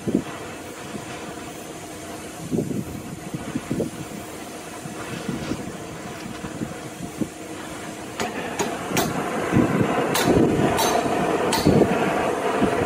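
Oxy-fuel gas torch flame hissing steadily as it heats and welds a steel chain ring. From about eight seconds in it grows louder, with a run of sharp pops.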